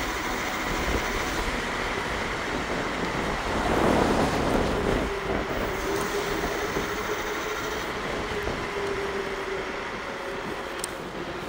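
Bluetran Lightning electric scooter running at speed: a steady motor whine over road and wind noise, with a louder rush about four seconds in.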